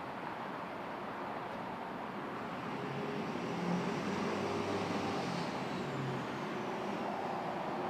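Motor vehicle engine running over steady road traffic noise, growing louder about three seconds in.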